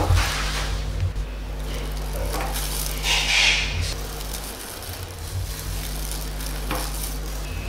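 A plastic bowl handled and set down on a wooden tabletop by a gloved hand, with a short hissing rustle near the middle and a faint knock near the end, over a steady low hum.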